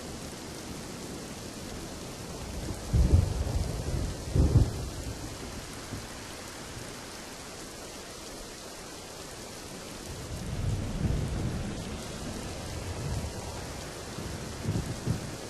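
Steady rain falling, with thunder: two loud cracks of thunder about three and four and a half seconds in, a longer rolling rumble about two-thirds of the way through, and two more short claps near the end.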